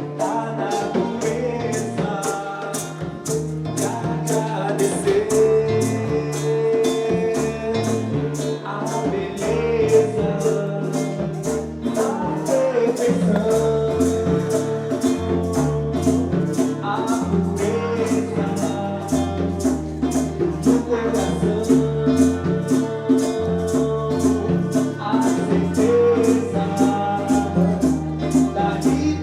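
Live band playing an instrumental passage: a shaker keeps a steady fast beat over a moving bass line, while a lead instrument plays long held melody notes.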